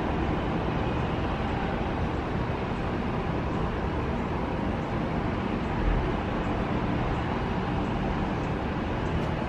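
Steady hum of distant road traffic, constant throughout, with no single event standing out.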